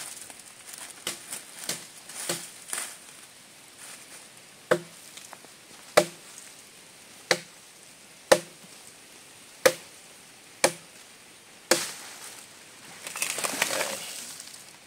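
Sharp chopping blows on wood, seven of them about a second apart, after a few lighter knocks. A longer noisy scrape follows near the end. No chainsaw is running.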